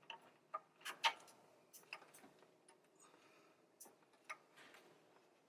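Ratchet wrench clicking in short, irregular strokes as a bolt is worked loose in a cramped spot.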